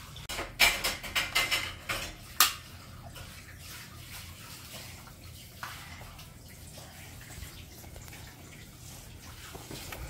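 A quick run of sharp plastic clicks and clatters from a LEGO Duplo toy train being handled, ending in one louder knock, then only a faint steady hiss.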